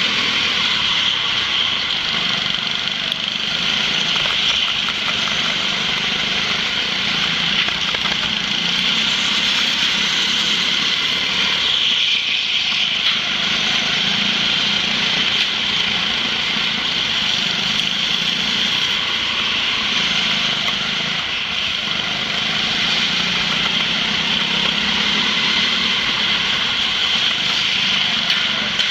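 Go-kart engines running steadily at racing speed, heard from a camera mounted on a kart among other karts.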